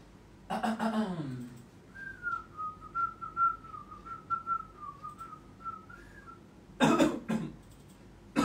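A man whistles a short, wavering tune for about four seconds. Before it comes a brief vocal sound falling in pitch, and near the end there are two short coughs.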